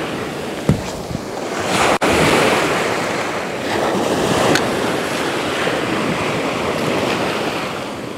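Sea surf: small waves breaking and washing up over the sand in the shallows, a steady rush that swells and eases.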